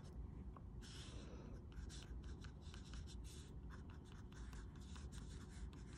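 Wax crayon scratching on paper in many short, quick strokes, faint.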